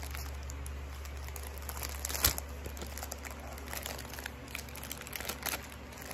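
Clear plastic gift bag crinkling as it is untied and handled, in irregular crackles with one sharper crinkle about two seconds in.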